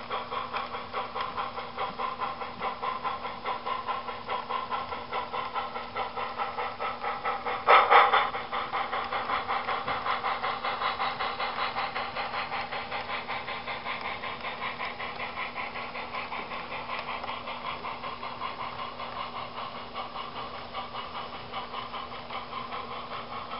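Sound-equipped model steam locomotive chuffing steadily at about three beats a second, fading slowly as it moves away. About 8 s in comes one short, loud blast.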